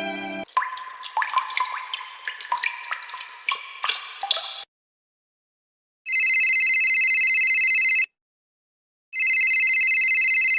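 A quick patter of water drips and plops for about four seconds. After a short pause, a telephone rings twice, each ring steady and about two seconds long, a second apart.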